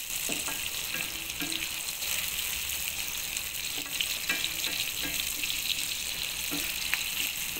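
Chopped tomatoes and onions sizzling steadily in hot oil in a pan while being stirred with a wooden spatula.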